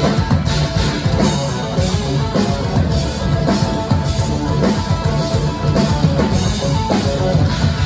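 Live instrumental progressive metal band playing: electric guitars, bass and a full drum kit with a steady beat.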